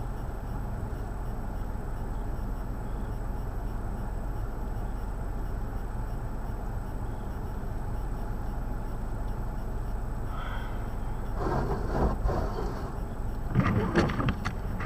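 Steady low outdoor rumble, like city traffic heard through blizzard wind, with louder irregular rustling bursts near the end.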